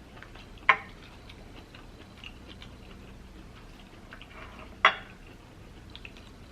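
Hard lobster claw shell clicking as it is handled and picked apart: two sharp clicks about four seconds apart, with faint small clicks between.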